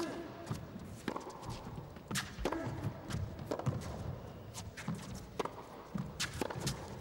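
Tennis rally on an indoor carpet court: an irregular string of sharp hits from racket strikes and ball bounces.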